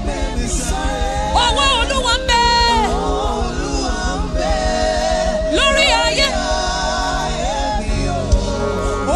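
Live gospel music: a lead singer with backing voices over a band with a steady bass pulse, in the last song of a worship set.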